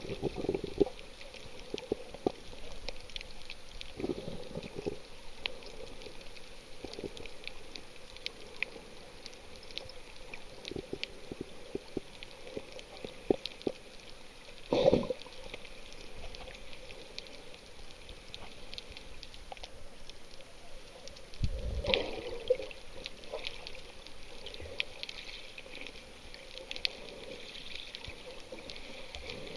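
Water heard through a submerged camera: a muffled wash with a constant crackle of small clicks, and two louder muffled surges of water, about halfway through and again about three-quarters of the way through.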